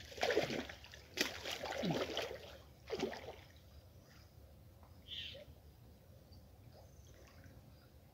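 Muddy creek water splashing and sloshing as a man wading in it gropes with his hands along the bottom: three bursts in the first three seconds, the middle one longest with gurgles, then only faint trickling.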